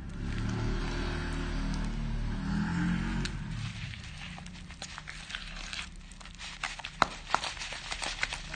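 Hands squishing and stirring a thick, creamy paste in a plastic bowl: wet crackling and clicking, with a run of sharper clicks in the second half. A low hum-like sound runs under the first few seconds.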